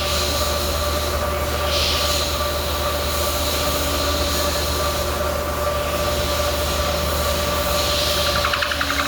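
Metal lathe running, with a steady low hum and a whine, under a hiss that swells twice, about two seconds in and again near the end.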